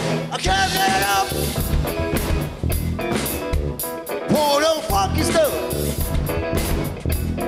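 Funk band playing live, with drum kit, electric guitar and keyboards, and a male singer's voice rising and falling over it.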